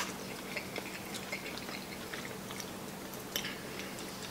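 Quiet eating sounds at a table: chewing, small wet clicks of fingers picking at sauce-covered crab meat and light ticks of a fork on a plate, over a faint steady hum.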